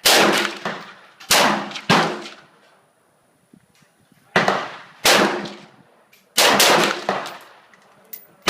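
AR-15 rifle shots, about eight, fired at an irregular pace with a quiet pause of about two seconds partway through, each crack followed by a short echoing tail.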